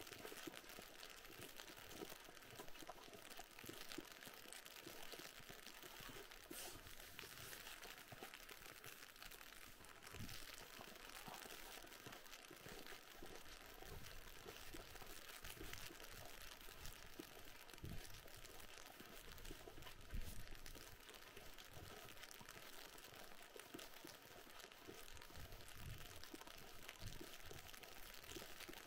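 Footsteps crunching in packed snow at a steady walking pace, under a faint steady hiss.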